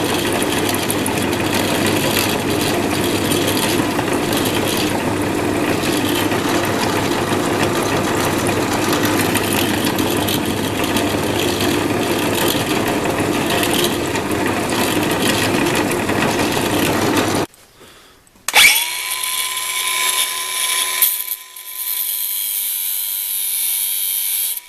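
Electric drill running steadily while drilling holes in a wooden knife handle, stopping after about seventeen seconds. About a second later the motor starts again, its pitch rising quickly as it spins up and then holding a steady whine.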